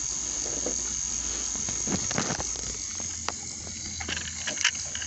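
Insects chirring in a steady, high-pitched drone, with a few faint clicks over it; it cuts off suddenly at the end.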